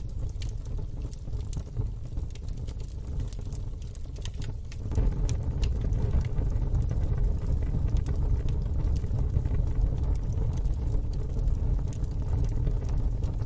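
Wood fire in a fire pit, crackling with scattered sharp pops over a low rumble. The rumble grows louder about five seconds in.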